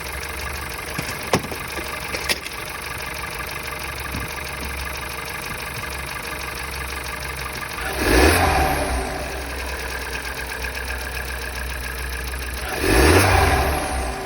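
Volkswagen 1.4 TSI (CXSA) turbocharged four-cylinder petrol engine idling with a knock, revved briefly twice, about eight and thirteen seconds in. Two sharp clicks come about one and two seconds in.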